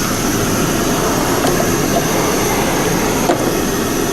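A steady, loud rushing roar of running machinery with a faint high whine over it, and one brief knock about three seconds in.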